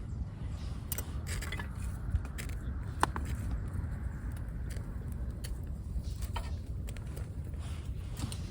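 Scattered light clinks and knocks of metal and glass items being handled, a few seconds apart, over a steady low rumble.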